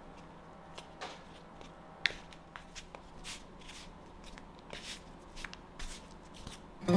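Kitchen tongs tossing flour-dusted thin pork slices in a styrofoam tray: soft irregular rustling and light clicks, with one sharper click about two seconds in. Acoustic guitar music comes in right at the end.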